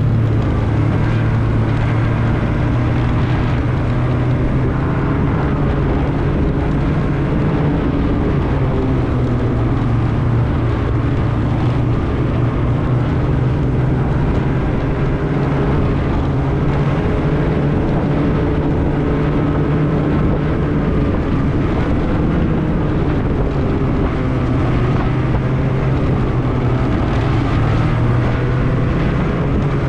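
Snowmobile engine running steadily and continuously, its pitch wavering a little as it goes.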